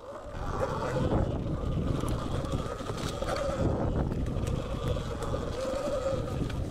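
Sur-Ron Light Bee X electric dirt bike ridden fast over bumpy trail. Its electric motor and drivetrain whine rises and falls with speed, over heavy wind rumble on the microphone, with scattered clicks and knocks from the bumps.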